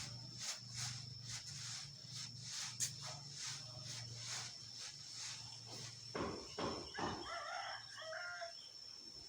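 Sand being sifted, with rhythmic swishing strokes about two to three a second. A rooster crows near the end.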